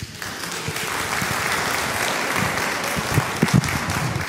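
A congregation applauding: the clapping starts abruptly and keeps up steadily.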